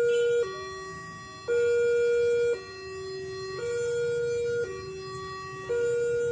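Railway level-crossing warning alarm sounding while the gates are down: an electronic two-tone signal alternating a higher and a lower note about once a second, the higher note louder.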